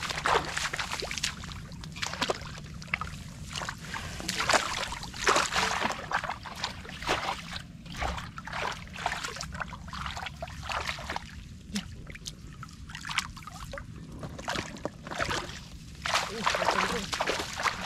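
Shallow water splashing and sloshing irregularly as hands work through it to grab fish, with bursts of quick splashes over a steady low rumble.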